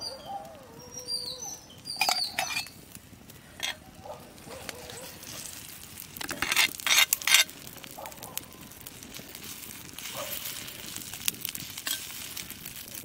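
Steel cooking utensils clinking and scraping on a hot cooking rock as beaten egg is spread over it with a slotted spatula: a few sharp clinks, then a louder run of scrapes and taps about halfway through, and a faint hiss near the end.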